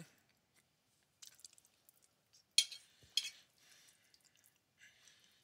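Close-miked eating sounds: wet chewing and smacking of soft food, with two sharp clicks about half a second apart a little past the middle.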